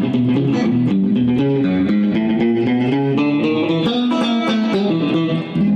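Electric guitar playing a fast riff of rapid single notes, with a short break near the end as a held chord starts.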